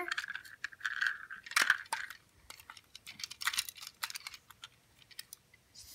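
Hard plastic clicking and rattling of a toy train's coal tender being handled and turned over in the hands, a quick series of small clicks that dies away after about four seconds.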